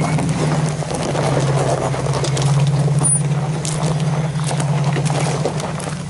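Off-road vehicle engine running steadily at crawling speed, with gravel and rocks crunching and clicking under the tyres.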